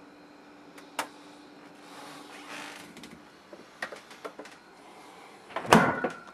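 Household refrigerator being used: a click, a brief rustle and several light clinks of glass beer bottles on the shelf, then the fridge door shuts with a heavy thump near the end, the loudest sound. A steady low hum runs under the first half and stops.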